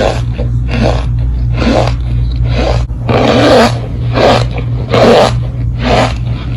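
Close-miked ASMR crunching of a brittle substance, repeated crunches about two a second with one longer grinding crunch about three seconds in, over a steady low hum.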